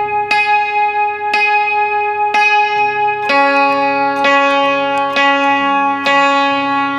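Yangqin strings struck with the beaters about once a second, each note ringing on. One note repeats for about three seconds, then a lower note takes over. This is the test after a string that had dropped off the ball-bearing rest was put back and the strings spaced evenly, and the strings ring clean with no buzz.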